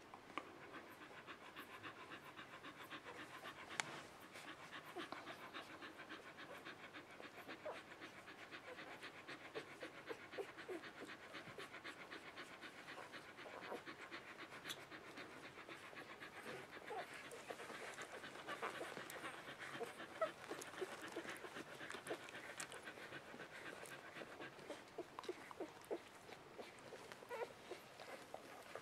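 Nursing Australian Shepherd mother dog panting rapidly and evenly, close up.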